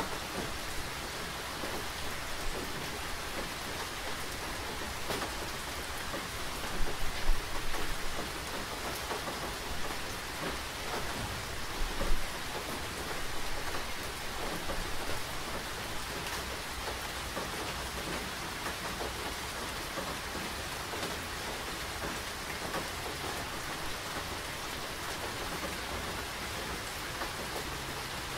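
Steady rain falling, a constant hiss dotted with small drop taps. Two brief louder low thumps come about 7 and 12 seconds in.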